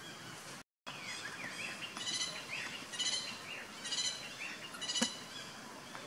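Birds chirping against a steady outdoor hiss, with a stacked burst of calls about once a second and short gliding notes between them. A sharp click comes near the end, and there is a brief drop to dead silence under a second in.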